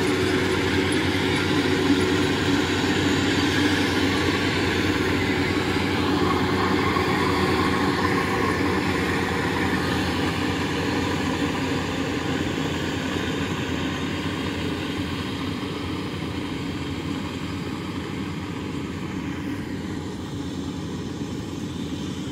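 Tracked rice combine harvesters running steadily, engine and threshing machinery together, slowly growing quieter as the nearest machine moves away.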